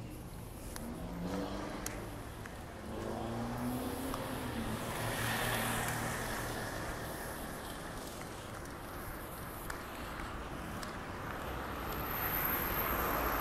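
Street traffic: a car accelerating past, its engine note rising twice in the first few seconds before the road noise swells about five seconds in, then another vehicle approaching and passing near the end.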